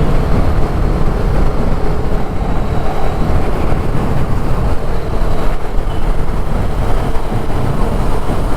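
Motorcycle riding at speed: wind buffeting the microphone over steady engine and road noise.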